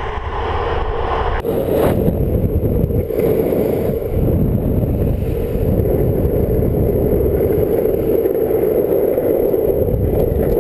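Longboard wheels rolling fast over a coarse chipseal road: a steady, coarse rolling rumble with a hum near the middle of its range.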